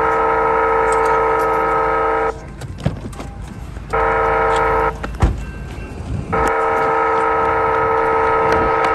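Railroad crossing wayside horn sounding the warning pattern for an approaching train. It plays a steady chord that starts and stops abruptly: a long blast ending about two seconds in, a short blast about four seconds in, and another long blast from about six seconds in. A single thump comes just after the short blast.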